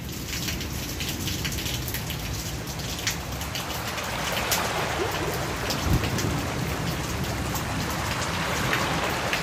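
Heavy rain falling steadily, with separate drops striking close by.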